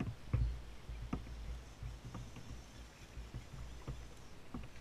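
Fishing reel being cranked against a hooked bass from an inflatable kayak: irregular short clicks and knocks, several a second, over a low rumble of wind and handling on the microphone.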